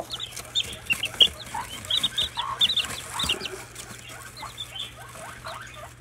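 A brood of young chicks and African goose goslings peeping: many short, high peeps, several a second, with a few softer, lower calls mixed in.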